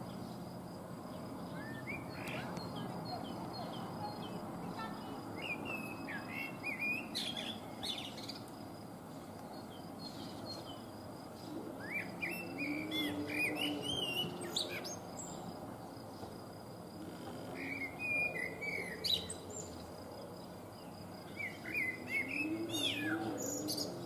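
Male common blackbird singing: about five separate phrases of warbled notes, several ending in higher, thinner twittering, with pauses of a few seconds between phrases, over a steady low background hum.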